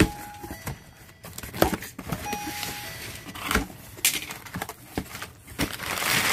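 A box cutter slitting packing tape on a cardboard box, then the cardboard flaps pulled open with scrapes and knocks. Crumpled packing paper rustles near the end as hands reach in.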